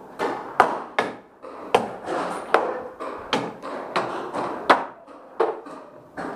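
Paintball exchange: about a dozen sharp cracks over six seconds, irregularly spaced, from paintball marker shots and paintballs striking the room's wooden walls.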